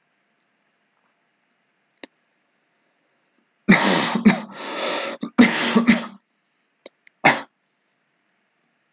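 A person coughing: two rough bouts starting about three and a half seconds in, followed by one short cough a second later.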